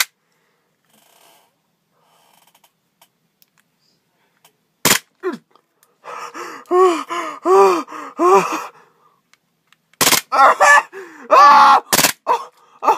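Gas blowback airsoft pistol on full auto firing: one sharp crack about five seconds in, then a young man's groans and gasps with the slide-mounted toothbrush in his mouth, and near the end a few more cracks from the pistol over another cry.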